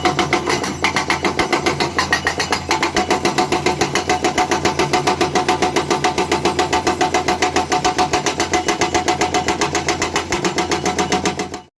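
Diesel engine of a heavy construction machine running steadily, with an even rapid throb of about seven pulses a second. It breaks off abruptly near the end.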